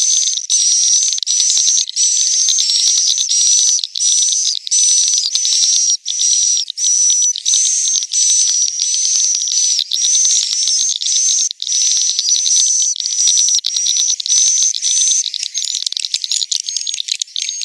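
Edible-nest swiftlets' roosting call: a dense, high twittering chirp repeated about twice a second, each call with a whistle-like note and separated by short breaks. The sound is loud and steady.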